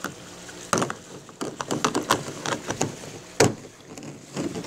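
A series of short plastic clicks and knocks as the lid of a snap-lock plastic food container is closed and its locking tabs are pressed down, with one louder knock about three and a half seconds in.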